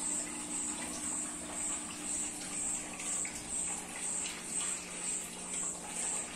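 Steady low hum of aquarium equipment with a faint watery wash. Over it, a high-pitched chirp repeats evenly about twice a second.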